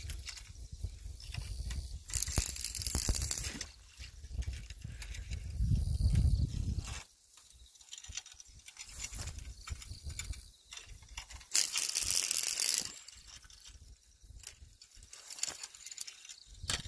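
Wind buffeting the microphone in gusts, with rustling of the grass and reeds. The heaviest rumble comes in the first half, and there are two louder hissing rustles near the start and about two-thirds of the way through.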